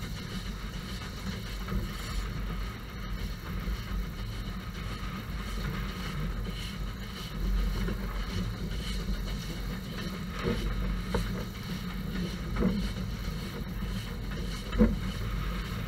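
Moving railway carriage: a steady low running rumble, with a few short knocks in the second half, the loudest near the end.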